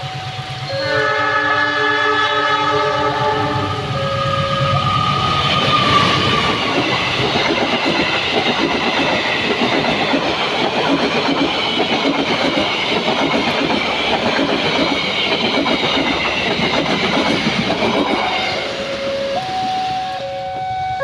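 Diesel-hauled passenger train: the locomotive's horn sounds a chord for about three seconds, then the train passes for about twelve seconds with wheels clattering over the rail joints. A level-crossing alarm's alternating two-note tones run before the horn and start again as the train clears near the end.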